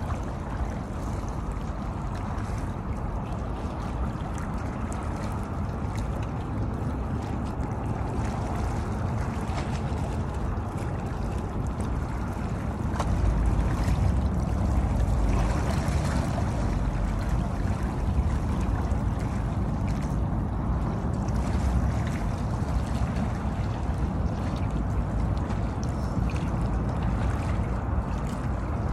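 Gentle sea water lapping against concrete wave-breaker blocks, with wind on the phone's microphone that grows heavier from about halfway through.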